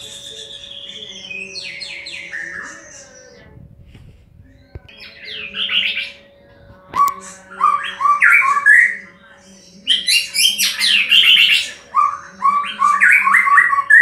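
White-rumped shama (murai batu) singing: a series of loud phrases of rapid, varied whistled notes with short pauses between them, fuller and more continuous in the second half.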